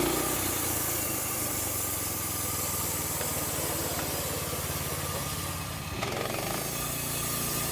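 A small engine running steadily, with an abrupt change in its sound about six seconds in.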